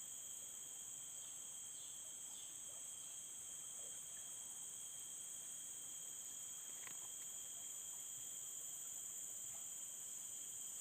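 Insect chorus: several steady, unbroken high-pitched trills sounding together at different pitches, with a few faint short chirps in the first few seconds.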